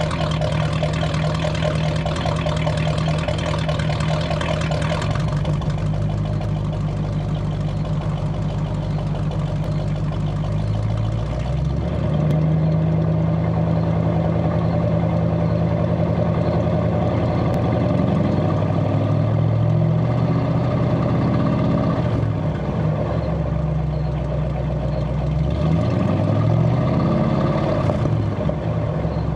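1967 Buick Riviera's 430 cubic-inch V8 heard at the exhaust, idling steadily, then partway through revved moderately a few times in neutral, the pitch rising and falling with each rev, and settling back to idle near the end.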